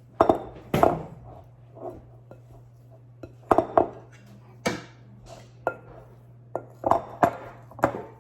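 Kitchen dishes and utensils clattering as they are handled: about eight separate knocks and clinks, some with a short ring, over a low steady hum.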